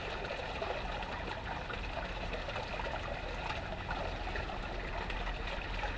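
Steady trickle and splash of water pouring out of a running submersible pump's discharge at full 50 Hz speed, with no back pressure, so there is a lot of flow.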